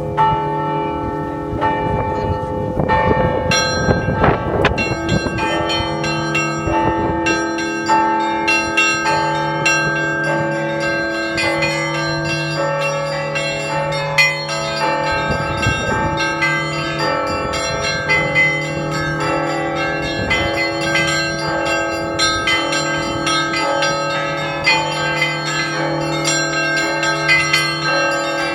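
Russian Orthodox church bells rung together from a belfry: a low bass bell sounds again about every two seconds under a dense, continuous pattern of quicker strikes on smaller, higher bells.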